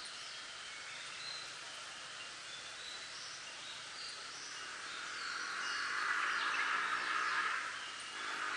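Wind rustling through bamboo leaves, swelling to a louder gust about five seconds in and easing near the end, with scattered brief high bird chirps.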